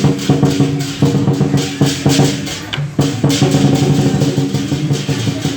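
Lion dance percussion: drum beats with rapid, regular cymbal clashes over sustained ringing tones. It drops briefly about two and a half seconds in, then comes back in sharply.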